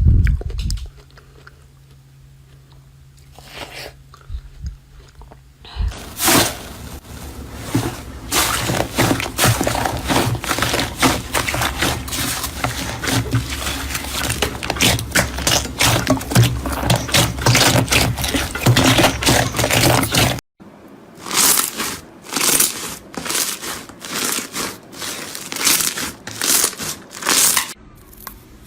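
Close-up crunching and crackling that starts in earnest about six seconds in as a dense, fast, irregular run. It breaks off abruptly two-thirds of the way through, and a series of separate crunches follows.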